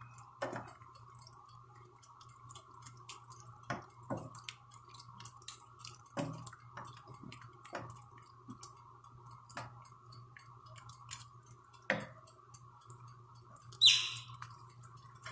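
Wooden spoon stirring a thick tomato and olive sauce in a large nonstick pan, with soft knocks of the spoon against the pan every second or two over a steady low hum. A sharper clink near the end as the spoon is set down in the pan.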